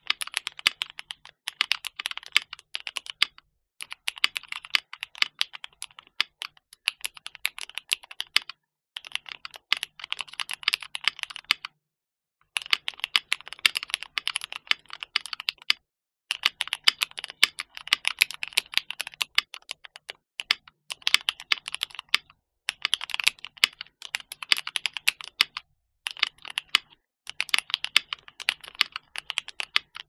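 Typing on a Keychron Q1 aluminium mechanical keyboard with Gateron Phantom Red linear switches and GMK Blue Samurai keycaps, its case modded with foam and tape to damp the hollow ping. Rapid runs of keystrokes with brief pauses every few seconds.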